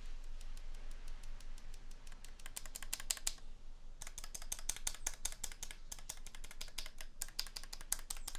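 Mechanical keyboard keys on a KBD67 MKII pressed rapidly over and over, with a short pause about three seconds in, testing freshly lubed stabilizers fitted with washers. The owner finds the result does not sound super good: reverby and rattly.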